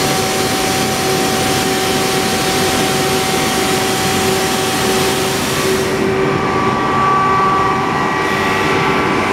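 Ekomak electric rotary screw air compressor running: a loud, steady machine drone with two steady tones through it. About six seconds in, the hissy top end falls away.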